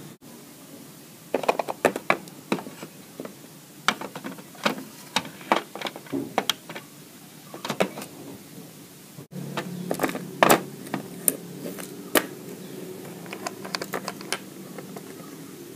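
Irregular light taps and clicks of plastic toy figures and dollhouse pieces being handled and moved by hand across a plastic dollhouse floor.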